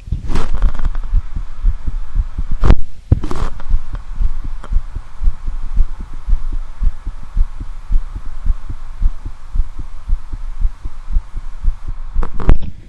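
A man's own heartbeat heard through a standard stethoscope: a steady run of low thumps. A few loud rustling scrapes come about a second in, around three seconds in, and again near the end.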